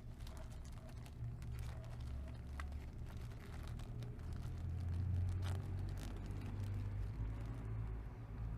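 Low motor-vehicle engine rumble that swells to its loudest about five seconds in and then eases off, with scattered light clicks and rustles over it.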